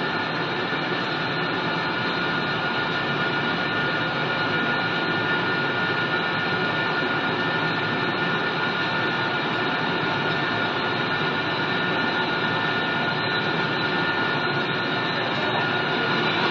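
Wood pellet production line machinery running steadily under power: a loud, even mechanical noise with a constant high whine.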